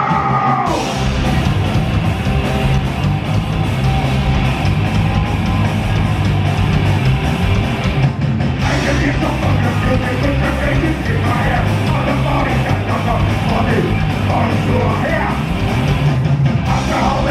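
Punk band playing live at full volume: distorted electric guitars, bass and drums, with shouted vocals.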